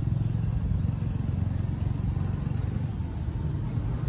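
A motor vehicle engine running steadily at low speed, an even low drone.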